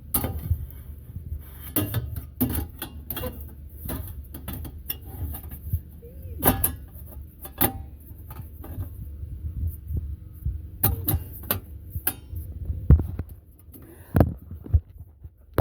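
Irregular knocks, taps and rattles of a pleated air filter being pushed and wrestled into an HVAC unit's filter slot, over a steady low hum.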